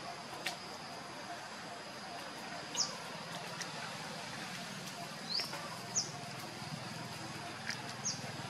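Outdoor ambience: a bird giving several short, high chirps, mostly falling in pitch, a few seconds apart, over a steady high-pitched hum.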